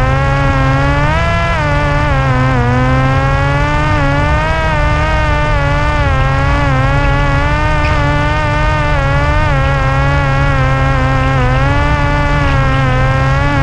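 Parrot Disco's electric pusher-propeller motor buzzing steadily in flight, its pitch wavering up and down a little with throttle, over a rush of air noise. Heard from a camera mounted on the plane.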